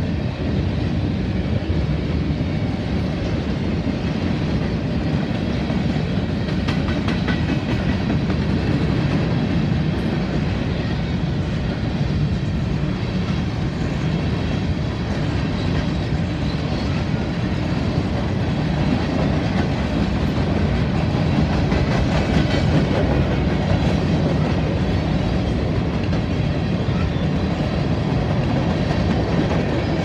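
Freight train's covered hopper cars rolling past close by: a steady rumble of steel wheels on rail, with scattered clicks as the wheels cross rail joints.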